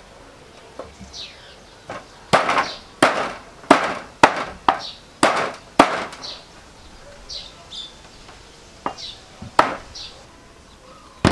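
Cleaver chopping raw chicken feet on a wooden chopping board: a quick run of about seven sharp strokes, about two a second, then a few slower ones.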